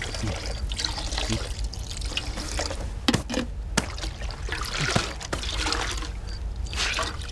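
Water trickling and splashing in a washbasin as a towel is worked in it, with a few sharp clicks around the middle.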